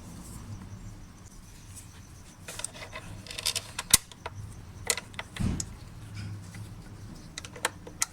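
Scattered clicks and clinks of metal tools and fasteners being handled while an engine cover is fitted, with one sharp click about four seconds in and a dull thump a little later.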